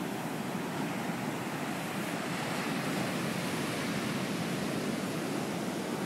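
Ocean surf breaking and washing up a sandy beach: a steady rush of noise that swells a little about two seconds in.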